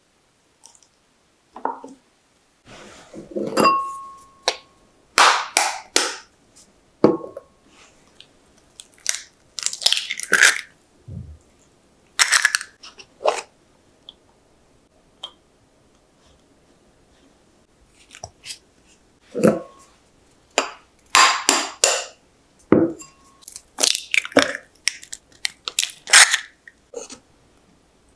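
Eggs being separated by hand: a series of sharp eggshell cracks and taps, light clinks of a plastic egg separator and cup, with quiet gaps between. One or two of the knocks ring briefly.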